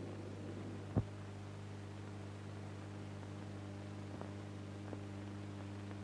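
Steady electrical hum in the soundtrack with a faint hiss, broken by one sharp click about a second in and two faint ticks later on.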